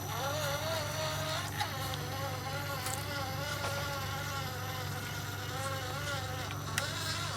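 Small electric motor of an RC crawler whining, its pitch wavering up and down with throttle and load, with a short break about one and a half seconds in.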